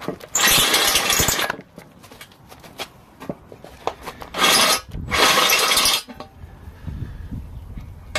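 Power drill with a step drill bit cutting into a cast aluminium engine sump, enlarging the drain hole to AN10 size for a weld-in fitting. It cuts in three bursts: one of about a second near the start, then two shorter ones around four to six seconds in, with quieter handling sounds between and afterward.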